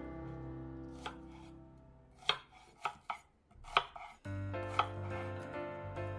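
Kitchen knife slicing through an onion down onto a wooden cutting board: about six sharp knocks at uneven intervals. Background music plays under it and drops out briefly in the middle.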